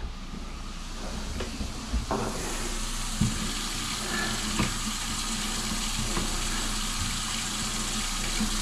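Kitchen faucet running into a stainless steel sink: a steady stream of water that starts about two seconds in, with a few light knocks.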